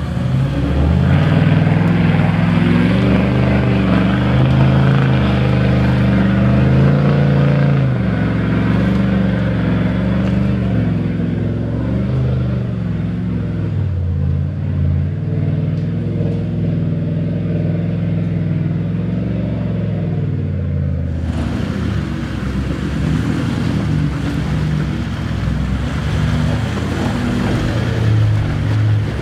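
Toyota Landcruiser 79 series engine working hard up a muddy hill climb, its note rising and falling with the throttle. Partway through, a sudden change to a second 79 series singlecab's engine labouring through deep mud.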